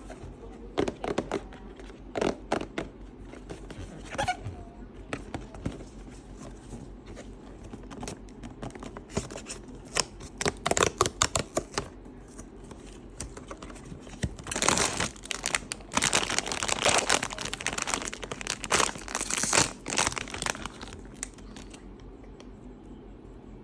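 Toy packaging being handled and torn open: scattered crackles and crinkles, then a denser stretch of tearing and rustling that stops shortly before the end.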